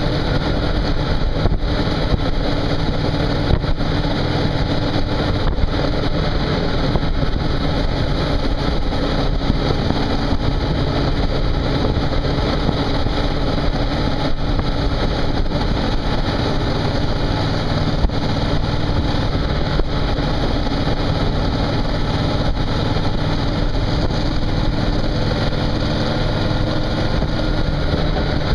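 Suzuki V-Strom motorcycle engine running at a steady cruise, with rushing wind noise over it.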